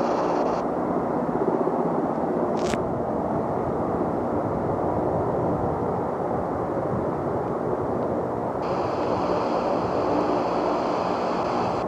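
Ilyushin Il-22M (Il-18 variant) with its four Ivchenko AI-20 turboprop engines running, a steady dense propeller drone. A brief rising whistle comes about two and a half seconds in, and a faint high whine joins near the end.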